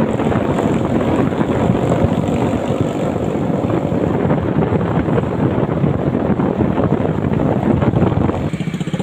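Steady wind rushing over the microphone mixed with engine and tyre noise from a moving vehicle. It dips briefly near the end.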